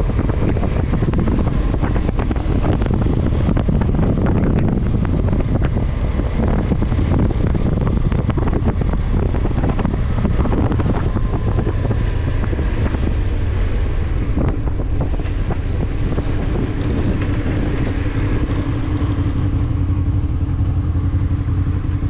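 Honda VFR800F's V4 engine running on the move, with wind buffeting the microphone; from about two thirds of the way in the wind noise eases and a steady engine hum comes through.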